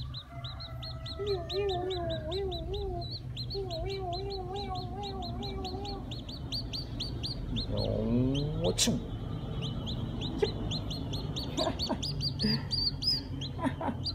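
Small black chick peeping steadily, several short high peeps a second. A lower wavering call runs under it for the first several seconds, and a rising call and a sharp knock come about eight seconds in.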